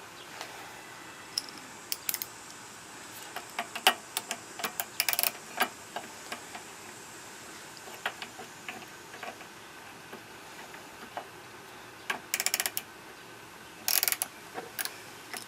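Socket ratchet clicking in short rapid runs, with scattered clicks and knocks of tool and metal parts, as the carburetor float bowl nut on a lawn mower engine is undone.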